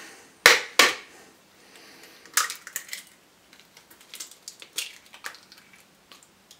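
An egg knocked sharply twice against the rim of a mixing bowl, then a run of small crackles as the cracked shell is pulled apart over the bowl.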